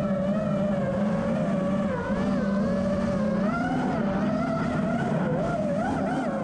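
FPV racing quadcopter's motors and propellers buzzing steadily, the pitch wavering up and down as the throttle changes.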